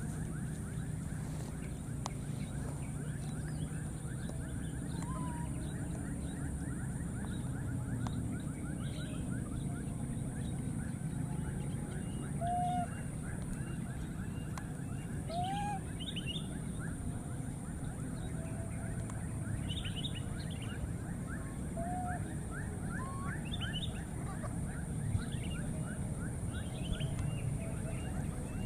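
Scattered short animal calls, each rising and then falling in pitch, about six in all. Under them runs steady outdoor background noise with a fast, even buzzing pulse.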